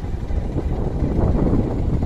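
Motor vehicle engine running steadily, with wind buffeting the microphone; it grows a little louder about a second in.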